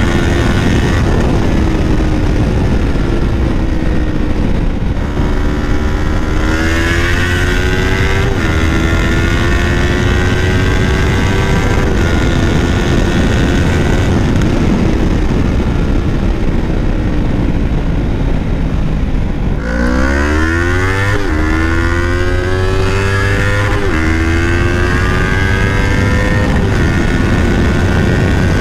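Yamaha R3's 321 cc parallel-twin engine through a full-system Leo Vince exhaust, heard from the rider's seat while riding: the note climbs in pitch and drops back at each gear change. About two-thirds of the way in it dips, then runs hard up through several quick upshifts. A low wind rumble sits on the microphone.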